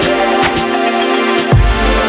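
Electronic background music: held synth chords over a beat, with a heavy bass hit about a second and a half in.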